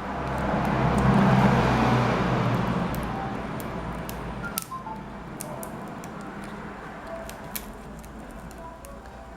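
Heat gun blowing: a rushing hiss with a low motor hum that swells over the first two seconds and then fades. It is followed by scattered small sharp clicks.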